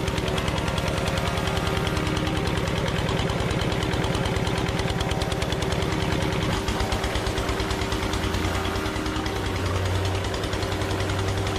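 Single-cylinder stationary diesel engine chugging steadily at a fast, even beat; a little past halfway the tone shifts and a steady low hum comes up under the beat.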